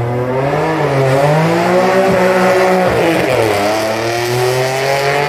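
Race car launching hard from the start line and accelerating away, its engine note climbing, dropping sharply at an upshift about three seconds in, then climbing again.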